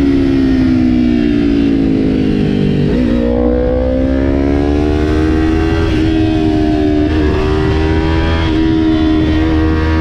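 A 2020 Kawasaki Ninja 400's 399 cc parallel-twin engine under way. Its note sinks for the first few seconds, jumps up sharply about three seconds in, then climbs steadily as the bike accelerates and levels off, with wind rumble on the microphone underneath.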